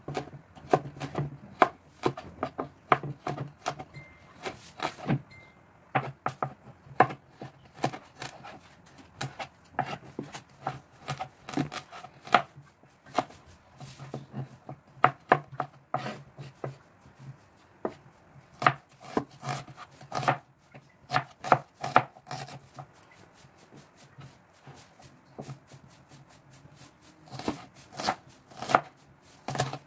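Kitchen knife chopping on a plastic cutting board: uneven runs of sharp taps with short pauses, as ginger is cut into thin strips and, near the end, red onion is chopped.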